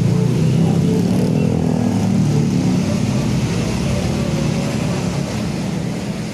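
Diesel engine of a large intercity bus running loud and close, then fading away near the end as it moves off.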